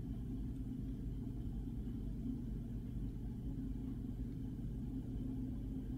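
A steady low hum with no distinct events.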